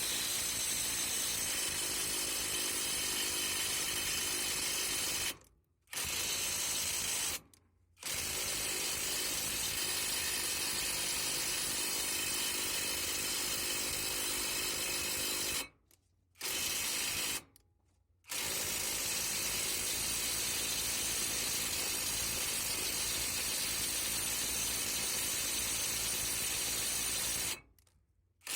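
AutoJare B1803 cordless brushless impact wrench running in long bursts with its rapid hammering, stopping abruptly a few times for under a second before starting again.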